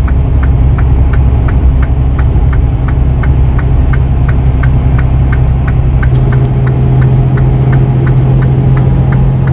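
Truck's diesel engine running with a steady drone, its note changing about six seconds in. A regular ticking at about three a second runs over it.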